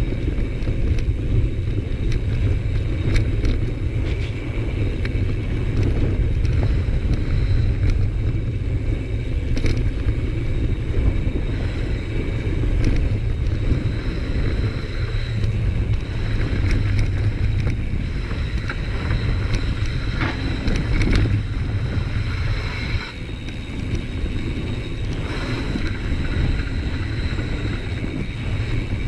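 Mountain bike descending a dirt trail: wind buffeting the bike-mounted microphone with a steady low rumble from the tyres rolling over dirt, and scattered clicks and knocks from the bike over bumps.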